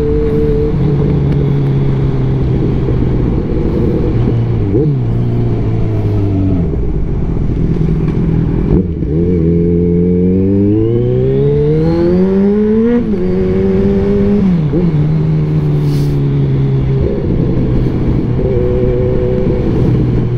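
Kawasaki Z1000 inline-four running through a single exhaust while riding, with a soft sound. Engine speed holds, then drops about four seconds in. After a brief dip around nine seconds it climbs steadily for about four seconds under acceleration, levels off and eases back.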